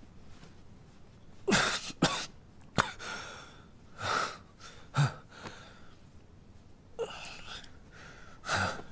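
A man's short strained grunts and gasping breaths, about seven in all, as he struggles with his wrists tied behind his back.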